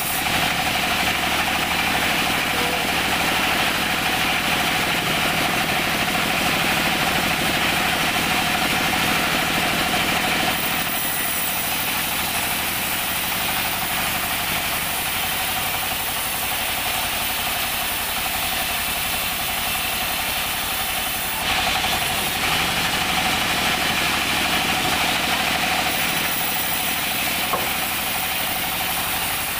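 Band sawmill running steadily while its blade cuts lengthwise through a teak log, a loud hissing rasp over the machine's hum. The cut stops about ten seconds in as the log is drawn back, and a second pass rasps through from about 21 to 26 seconds.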